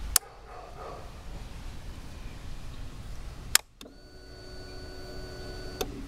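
Two sharp switch clicks about three and a half seconds apart; just after the second, the 2006 Honda CBR600RR's electric fuel pump primes with a steady whine for about two seconds and then cuts off with a click. The pump is priming normally as the ignition comes on.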